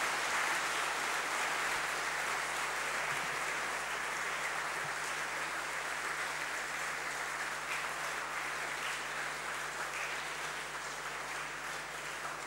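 Lecture-hall audience applauding, a steady dense clapping that eases off slightly near the end.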